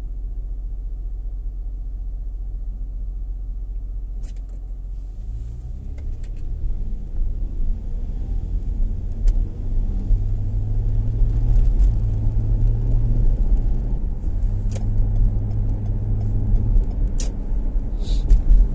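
Car heard from inside the cabin: a steady low engine hum while stopped, then louder engine and tyre rumble building from about five seconds in as the car pulls away and drives on. A few short sharp clicks come through in the second half.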